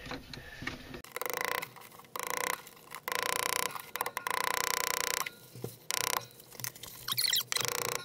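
Claw hammer driving nails through a plastic electrical box into a wooden stud, heard as repeated quick runs of rapid taps.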